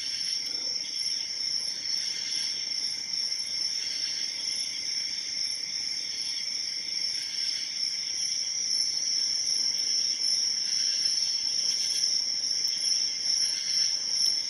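Steady, high-pitched chorus of insects with a slight waver, with a few faint clicks near the end.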